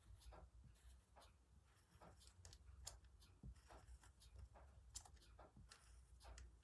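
Near silence, with faint scattered light ticks and rustles of tracing paper being handled.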